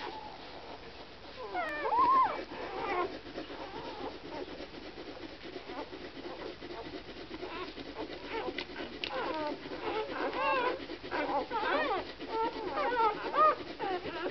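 Newborn Samoyed puppies squeaking and whimpering while they nurse: many short, high calls that bend up and down in pitch. The calls come more often in the second half.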